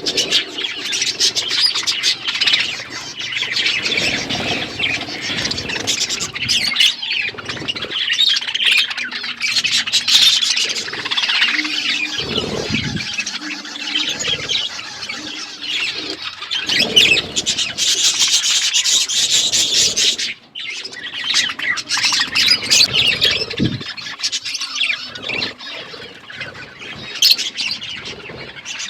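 A group of budgerigars chattering and chirping continuously, with warbles, sharp chirps and occasional squawks and wing flutters.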